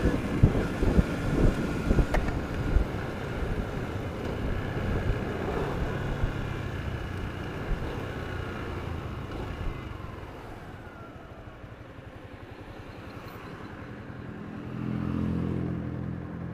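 Yamaha Y15ZR's 150 cc single-cylinder engine running through its stock exhaust, with a few sharp knocks in the first seconds. The engine sound fades for a while and rises again about fifteen seconds in.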